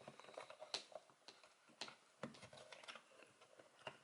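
Faint, scattered clicks and taps of a plastic toy belt strap being handled and fitted together, about half a dozen light ticks.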